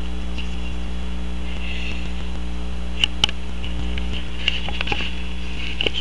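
Steady electrical hum, with a few faint clicks and smacks scattered through it: about halfway through, again a little later, and just before the end. The clicks are a small Chihuahua–rat terrier mix licking its chops, its mouth sticky with peanut butter and marshmallow cream.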